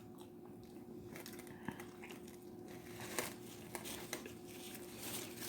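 Faint crinkling of a food wrapper being handled, with scattered small clicks and rustles that grow a little busier in the second half.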